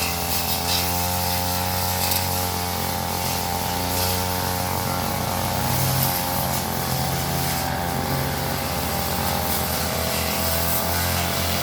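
Brush cutter engine running steadily at working speed, its pitch wavering a little.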